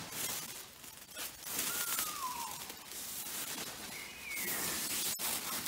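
Black plastic stretch wrap being pulled and torn off a pallet: crackling and rustling film, with two short falling squeaks as the plastic stretches.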